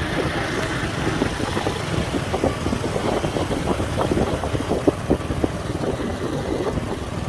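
Motorbike engines and road traffic, a steady rumble with no single event standing out.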